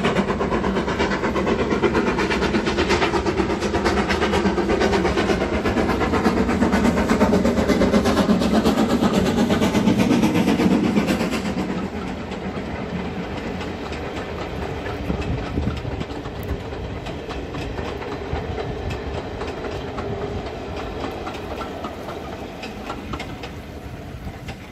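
Steam locomotive hauling a train of coaches passes close by, loudest for about the first eleven seconds. The sound then drops to the coaches' wheels rolling along the rails, fading as the train moves away.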